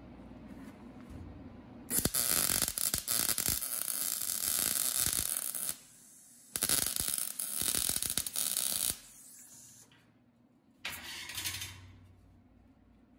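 Eastwood MIG 135 welder's arc crackling and sputtering while it welds a gap in sheet metal, in two runs of a few seconds each with a short break between, then a brief third burst near the end.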